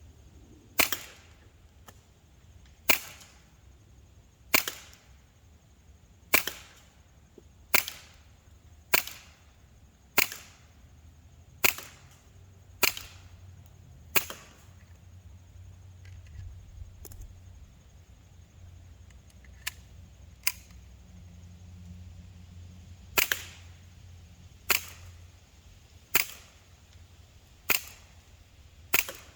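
Gletcher APS Stechkin .177 CO2 blowback BB pistol firing: sharp pops in a steady string of ten shots, about one every one and a half seconds. After a pause of about nine seconds, five more shots follow at the same pace.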